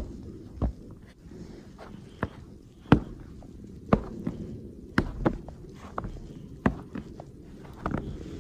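Footsteps on the snow-covered deck of a suspension footbridge: a string of sharp, uneven thuds, roughly one a second.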